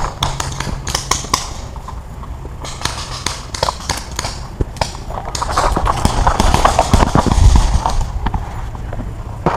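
Running footsteps thudding on a dirt forest floor, with gear and foliage rustling, loudest from about halfway through to near the end. Sharp pops of paintball markers firing go off at irregular moments throughout.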